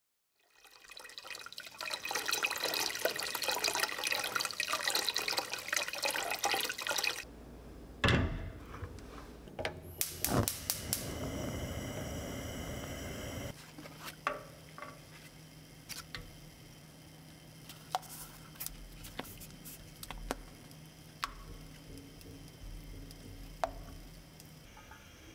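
Water running from a kitchen tap for about seven seconds and then stopping, with a second shorter run a few seconds later. Afterwards scattered clicks and knocks of kitchen handling over a low steady hum.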